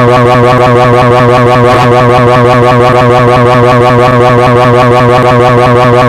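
Pocoyo's cartoon screaming sound effect, a rolled "jrarararara" yell, looped continuously and played very loud with a fast, even warble and no break.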